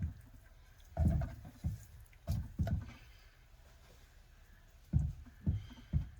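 Kitchen knife cutting sea bass on a cutting board, with several dull knocks at uneven intervals as the bony middle strip of the fillet is cut away.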